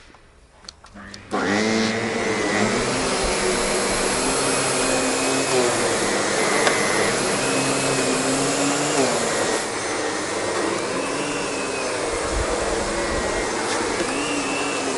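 SEBO vacuum cleaner with a powered brush head switched on about a second in, then running steadily while vacuuming, its motor hum shifting slightly in pitch as it works.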